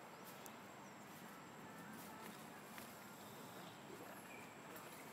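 Near silence: faint outdoor background hiss with a few faint clicks and a brief faint high chirp about four and a half seconds in.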